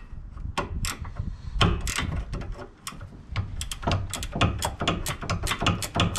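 Ratcheting spanner clicking in short strokes on a nut of a Honda Civic's front sway bar link, the clicks coming quicker in the second half.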